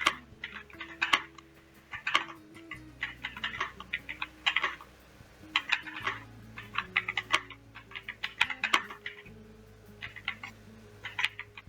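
Typing on an AJAZZ AK870 Plus mechanical keyboard: quick clusters of key clacks with short pauses between them.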